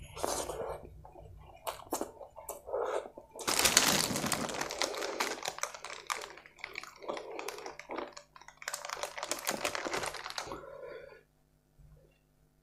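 Aluminium foil packet crinkling and crackling as it is handled, a dense run of sharp crackles lasting about seven seconds and stopping abruptly. Before it there are a few close-up chewing sounds.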